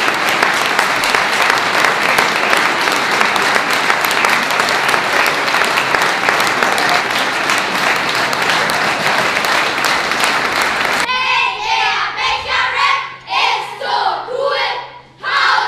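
Audience applauding steadily and loudly, cutting off abruptly about eleven seconds in. A short stretch of voices in separate bursts with brief gaps follows.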